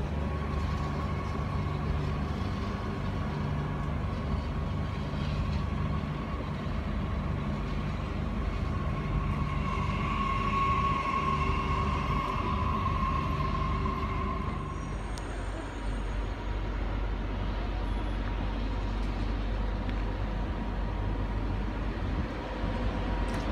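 TER AGC electric multiple unit moving through the station, with a steady low rumble and a high whine. The whine grows louder about ten seconds in and fades out about fifteen seconds in, leaving the low rumble.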